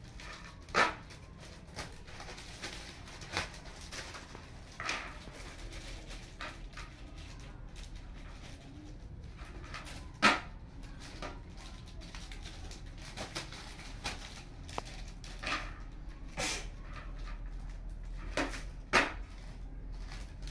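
Scattered sharp clicks and rustles from hands handling bundles of incense sticks and plastic packets, about eight separate sounds, the loudest about a second in and about ten seconds in.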